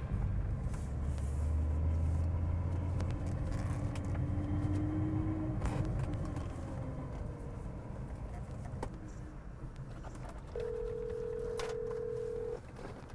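BMW E36 M3 straight-six engine running as the car pulls away, with a low drone that gives way to a slowly rising note. Near the end a steady electronic tone sounds for about two seconds.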